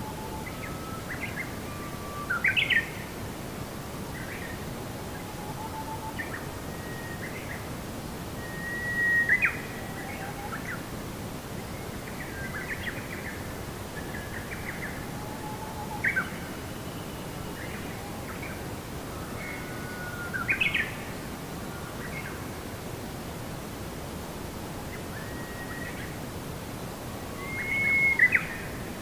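Birds calling and chirping: short whistled notes and quick rising calls, with about five louder calls standing out, over a steady soft hiss of background noise.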